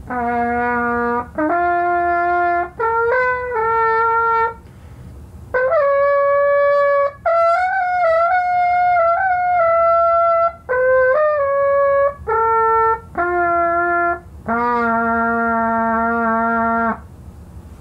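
A homemade tube horn, plastic tubing with a funnel for a bell, played with a brass mouthpiece. It plays a short bugle-like tune of separate held notes, climbing from a low note and coming back down to end on a long low note. With no valves it can only play the natural partials of its tube, roughly in concert B-flat.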